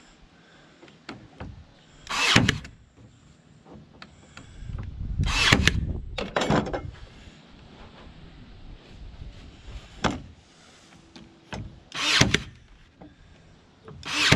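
Cordless Ryobi 18V AirStrike brad nailer driving brads into wood: a handful of sharp shots a few seconds apart, with a longer gap in the middle.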